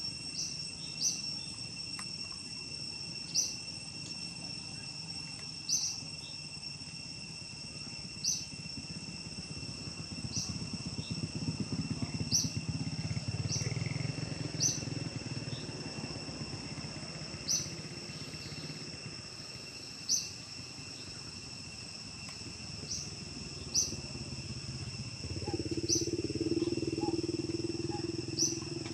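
Steady high-pitched insect drone in the forest, with short sharp chirps every two to three seconds. A low rumble swells twice, once around the middle and again near the end.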